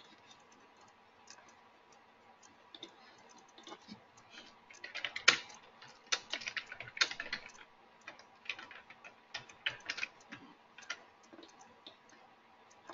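Typing on a computer keyboard: scattered clicks at first, then a quick run of keystrokes through the middle, with one sharper keystroke about five seconds in.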